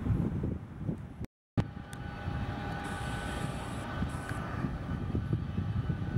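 Jet engines of a taxiing Boeing 757 airliner running at low power: a steady whine with several held tones over a low rumble of wind on the microphone. There is a brief gap of silence just over a second in.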